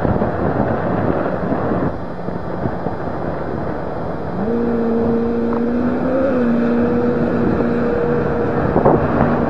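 Motorhome and dump truck engines running hard as the two vehicles race, under heavy wind noise on the microphone. About four seconds in, a steady engine drone comes up and holds, briefly rising in pitch about halfway through.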